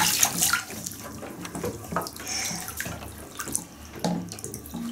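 Water squeezed from a sponge running over a baby's head and splashing into the bathwater, loudest at first, then scattered small splashes and drips in the bath.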